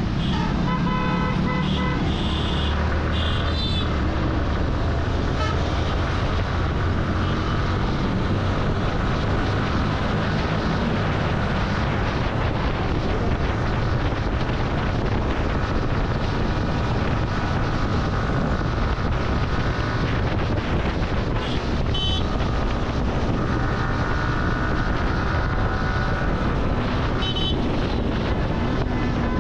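Motorcycle riding at speed, with a steady rush of wind and engine noise on the microphone. Vehicle horns honk several times in the first few seconds, and short honks come again about three-quarters of the way in and near the end.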